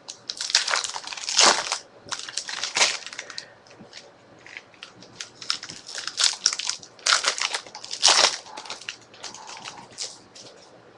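Plastic packaging crinkling and crackling in irregular bursts as it is handled.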